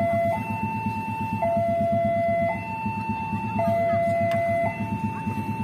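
Railway level-crossing warning alarm sounding a two-tone signal, switching between a lower and a higher tone about once a second, which warns of an approaching train. A steady low rumble runs underneath.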